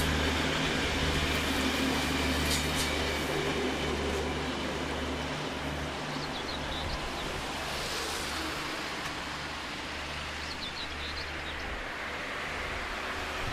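NS DE2 diesel-electric two-car train running past at low speed, its diesel engine giving a steady low drone that eases slightly as the train moves away.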